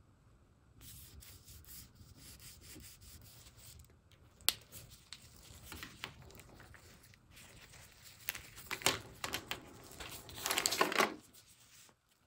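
Fine 0000 steel wool rubbed over a shellac finish on wood, in irregular scratchy strokes. There is one sharp tick about midway, and the rubbing gets heavier and louder near the end before stopping.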